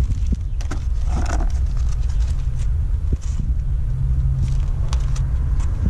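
A steady low rumble with a held low hum in its second half, over small clicks and a brief squelchy scrape as thickened epoxy is squeezed from a plastic syringe into holes drilled in a fibreglass deck.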